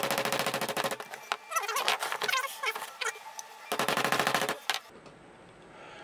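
MAPP gas torch flame running with a fast, regular crackle, heating a seized steel pedal assembly to free its roll pin. It cuts off abruptly near the end.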